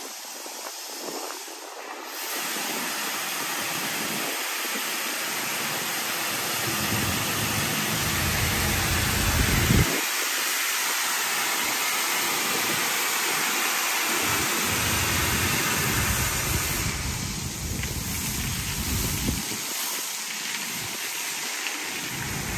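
Razor touchless automatic car wash gantry spraying water and foam onto a car: a steady rushing hiss like heavy rain, starting about two seconds in, with low rumbling that comes and goes.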